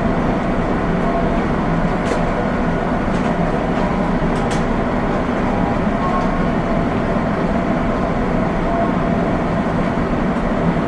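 Running noise of a 205 series electric multiple-unit train at speed, heard inside the car: a steady rumble of wheels on rail with a low motor hum and a few faint clicks.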